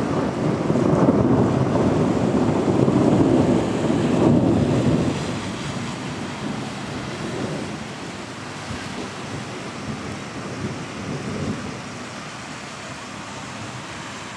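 A long rolling rumble of thunder, loudest over the first five seconds, then dying away in a few weaker rolls.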